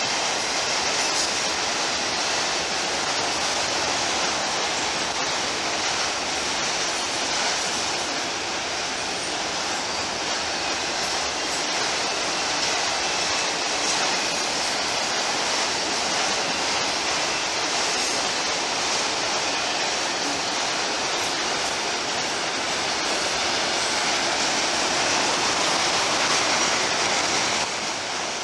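Freight train of autorack cars rolling past, steel wheels on the rails making a steady rolling noise, with a brief dip in level near the end.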